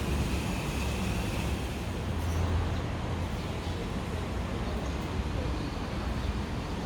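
Steady low vehicle rumble with traffic noise.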